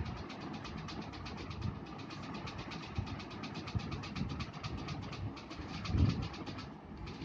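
An engine idling, with an even ticking of about ten strokes a second over a low rumble.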